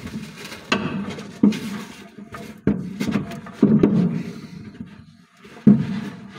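A heavy truck gearbox being rocked and pushed to line its splined input shaft up with the clutch: about five dull metal knocks, a second or so apart, each dying away quickly.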